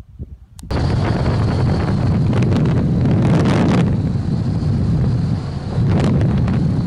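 de Havilland DH-83 Fox Moth biplane heard from its open cockpit in flight: the Gipsy Major engine runs steadily under heavy wind rush on the microphone, starting abruptly about a second in. The plane is on approach for a touch-and-go landing.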